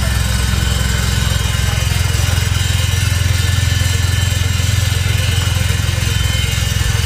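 Mitsubishi Triton common-rail turbo-diesel idling steadily through a new full stainless-steel exhaust system. The exhaust note is an even, low pulsing rumble from the tailpipe.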